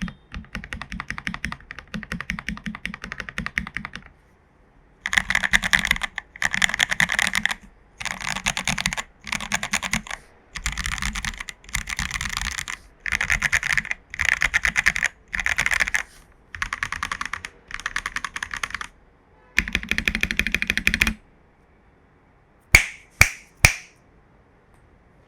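Typing on an AKKO PC75B Plus mechanical keyboard with lubed Jelly Black linear switches and XDA-profile keycaps: a steady patter of keystrokes, then about a dozen short runs of fast rolling keystrokes, each about a second long, with brief pauses between them. Near the end come three single sharp, loud key clacks.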